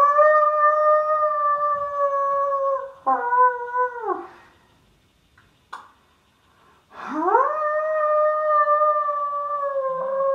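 A person's voice imitating a wolf howl: two long howls, each sliding up in pitch, holding steady for a few seconds, then breaking and falling away. A brief click sounds between them.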